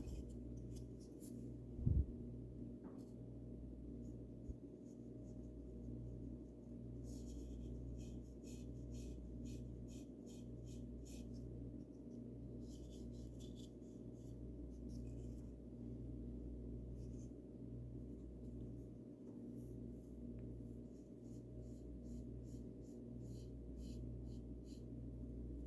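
Paintbrush stroking paint onto a birdhouse, in runs of quick light brush strokes, over a steady low hum. A single low thump about two seconds in.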